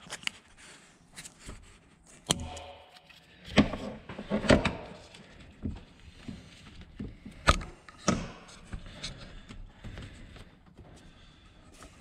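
Hand tool working a radiator hose clamp loose at an engine's thermostat housing: a handful of sharp metal clicks and knocks, scattered over several seconds with light rustling between them.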